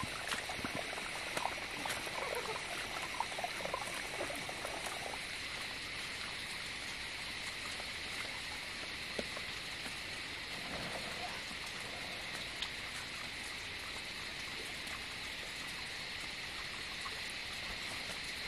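Steady outdoor background hiss, even and unbroken, with faint distant voices in the first few seconds.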